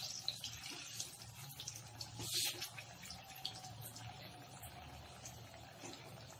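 Egg bhaji (gram-flour-battered boiled egg slices) frying in hot oil in a kadhai: a steady sizzle with small crackles, swelling louder briefly about two seconds in.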